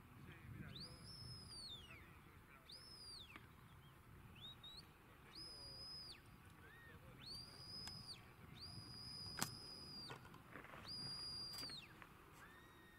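Faint sheepdog handler's whistle commands: a series of about seven high whistles, a few gliding up and down, most held flat for around a second, directing the working dog around the sheep. A sharp click about nine seconds in is the loudest moment.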